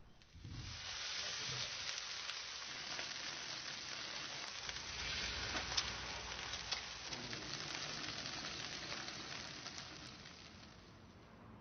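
Burger patties and an egg sizzling on a hot flat-top griddle, a steady dense frying hiss with a few light clicks. It fades out near the end.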